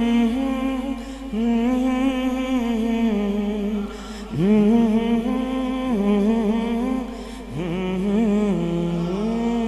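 A man singing a naat unaccompanied into a microphone, in long drawn-out melodic phrases with held, wavering notes and short pauses for breath, about a second in, about four seconds in and about seven and a half seconds in.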